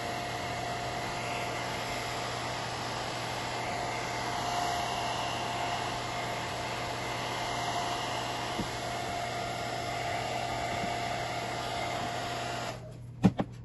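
Handheld hair dryer on its low heat setting blowing steadily, with a steady whine over the rush of air, warming a vinyl stencil so it sticks to the shoe's leather. It stops abruptly near the end, followed by two sharp knocks.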